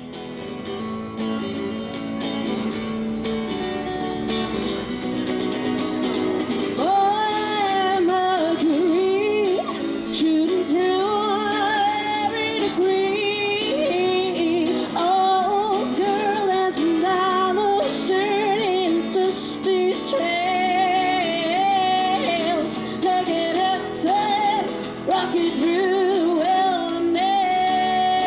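Music: a woman singing over guitar accompaniment. The music fades in, and the voice enters about a quarter of the way through.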